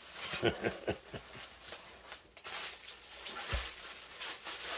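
Plastic bubble wrap crinkling and rustling as it is pulled and lifted off a guitar, with a soft low thump about three and a half seconds in.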